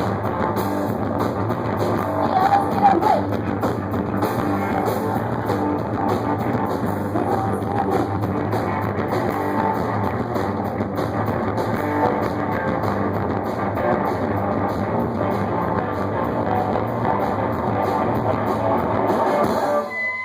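Live rock band playing guitar and drums, a dense, steady punk-blues instrumental passage; the song stops abruptly just before the end.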